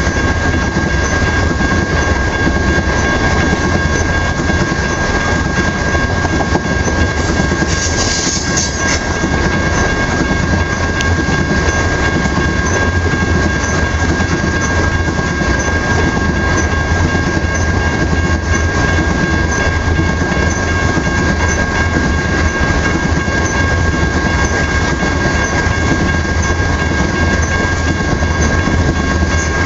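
Oil train of tank cars rolling past at speed: a loud, steady rumble of steel wheels on rail with clickety-clack and a constant high ringing tone held throughout. A brief hiss about eight seconds in.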